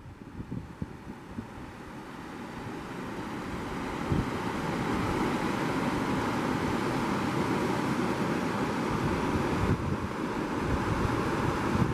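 Steady rushing of creek water over rocky cascades, with wind buffeting the microphone in uneven low rumbles; it grows louder over the first few seconds and then holds steady.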